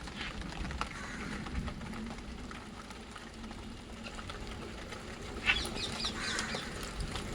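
Steady rain falling, with parrots calling. About five and a half seconds in comes a loud burst of shrill, rapidly repeated calls.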